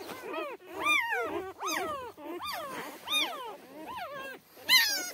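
Newborn Kangal puppies squealing and whimpering as they nurse: a quick run of short, high cries that rise and fall in pitch, several overlapping, the loudest near the end.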